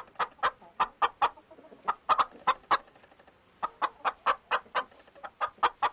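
Chicken clucking: a run of short, separate clucks, several a second, with a brief pause about halfway through.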